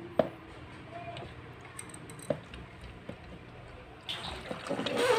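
Light clinks from a miniature aluminium pot and its wire handle, then, about four seconds in, water poured from the pot splashing into a small stainless-steel sink.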